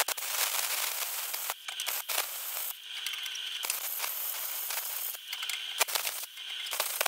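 Handheld plasma cutter cutting through steel plate: a steady hiss of air and arc with crackling clicks. The hiss drops away briefly a few times.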